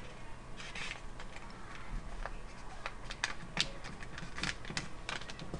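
Origami paper crinkling and rustling as fingers fold and crease it, a scatter of short crackles and ticks at irregular intervals.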